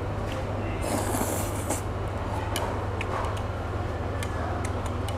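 Eating sounds close to the microphone: metal chopsticks clicking against the plate and a man chewing grilled beef, with a short noisy burst about a second in, over a steady low hum.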